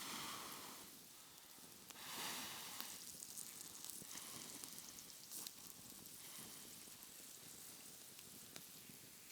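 Faint sizzling and scattered small crackles from a campfire, with two brief louder swells of hissing, at the start and about two seconds in.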